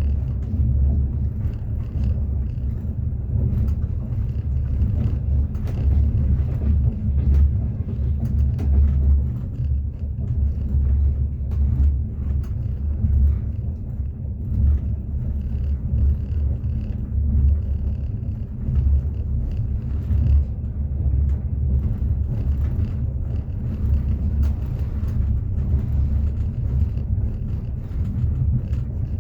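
Train wheels running on the rails, heard from inside a moving passenger carriage: a steady deep rumble with faint, irregular clicks over it.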